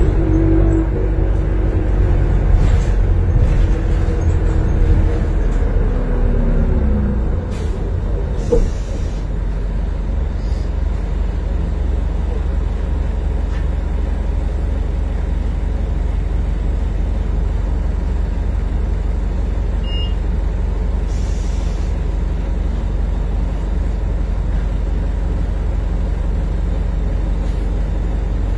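Inside a 1995 New Flyer D40LF bus: the Detroit Diesel Series 50 engine and drivetrain whine drops in pitch as the bus slows to a stop. About eight seconds in there is a short hiss of air from the air brakes, and then the diesel idles with a steady low rumble. Another brief air hiss comes a little past the middle.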